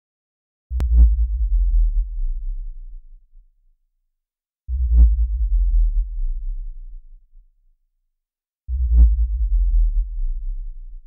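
Three deep, low booms about four seconds apart, each starting suddenly and fading away over two to three seconds, with a brief higher tone at the start of each. A sharp click comes with the first boom.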